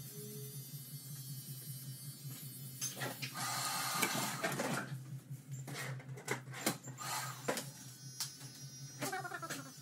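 Electric hair trimmer humming steadily as a beard is trimmed. A loud rushing hiss comes about three to four seconds in, and a run of sharp clicks follows it.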